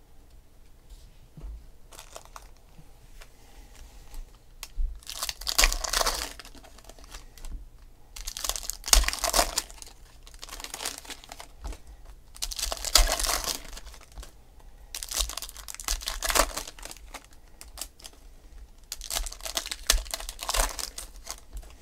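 Foil wrappers of football trading-card packs being torn open and crinkled by hand, in about five bursts of a second or two each, a few seconds apart.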